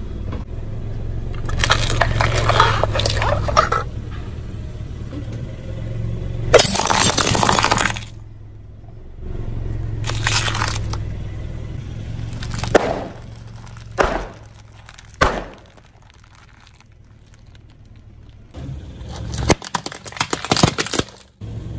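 Objects cracking and breaking as they are crushed under a vehicle's tyres, in several separate crunching bursts, the loudest about six and a half seconds in, with a string of sharp crackles near the end. A low engine hum runs underneath.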